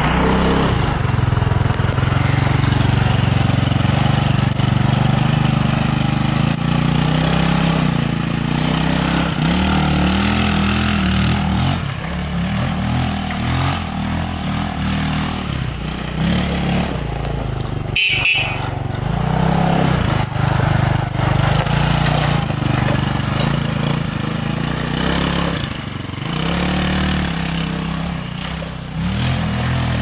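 Off-road go-kart engine running while driving on a dirt trail, its pitch rising and falling every few seconds as the throttle is worked. It is louder and closer at first, then a little farther off in the second half.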